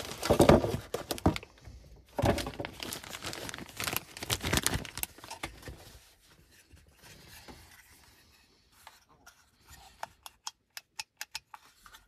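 Plastic wrapping and a cardboard box crinkling and rustling as a new handbrake switch is unpacked. Near the end there is a quick run of small sharp plastic clicks as the part is handled.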